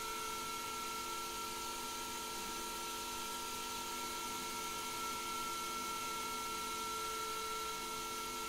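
Small CNC lathe running at a steady spindle speed while turning a small brass part. It gives a steady, high-pitched whine made of several constant tones, over a light hiss.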